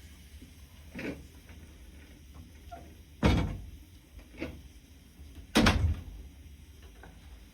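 Four short knocks of something being handled, the two loudest about three and five and a half seconds in, over a steady low hum.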